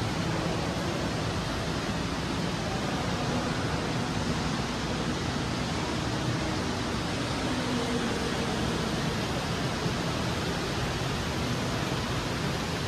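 Steady, even rush of water from an indoor atrium's river and water features.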